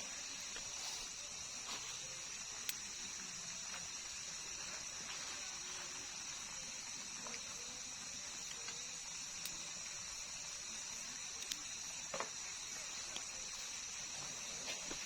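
Crickets chirring in one steady high-pitched drone. A few faint clicks and taps come through it, the sharpest about three seconds in and again near twelve seconds.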